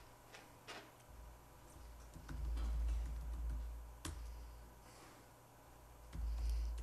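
Laptop keyboard typing: a few sparse, faint key clicks as a short terminal command is typed, with a low rumble now and then.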